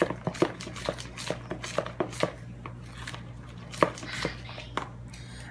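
Spoon clicking and knocking against a mixing bowl while stirring brownie batter: irregular taps, several a second at first, then sparser, with one sharper knock near the end.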